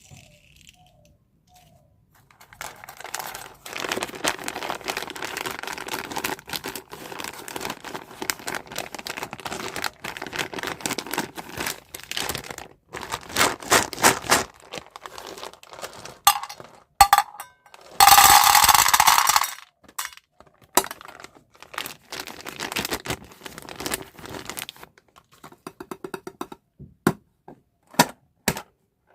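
Plastic candy packaging crinkling and rustling as it is handled and torn open, with a louder burst of rustling for about a second and a half past the middle. Scattered sharp clicks and taps of small hard objects follow near the end.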